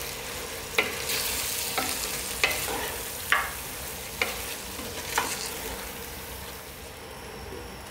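Wooden spoon stirring meat, onions and tomatoes frying in a clay pot, with a steady sizzle and about six sharp knocks of the spoon against the pot roughly a second apart. The sizzle fades near the end.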